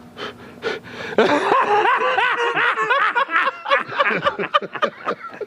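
A man laughing: a run of short chuckles, starting about a second in and tailing off near the end.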